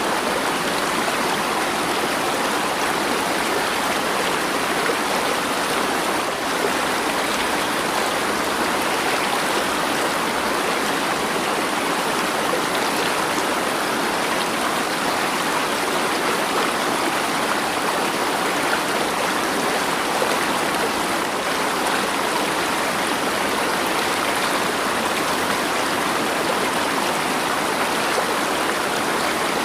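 Flowing water of a stream, a steady, even rush with no breaks or changes.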